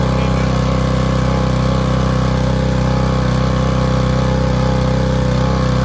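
Pressure washer's 7-horsepower gas engine running steadily, driving the pump while water and air spurt from a loosened fitting on the pump manifold: the pump is being bled of air to prime it from a gravity-fed tank.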